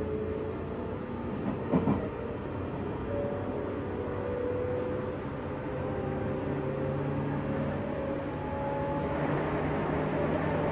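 JR West 201 series electric train running, heard from inside the motor car: steady running noise with a whine that slowly rises in pitch as the train gathers speed, and two sharp knocks about two seconds in. The rolling noise grows louder and brighter near the end.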